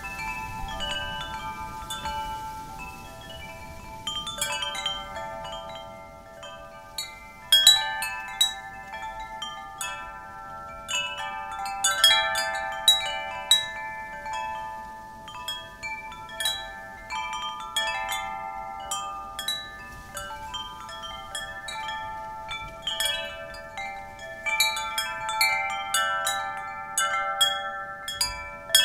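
Wind chimes ringing irregularly as the wind knocks them, several pitched tones struck at random and left to ring out, with a faint wind hiss underneath.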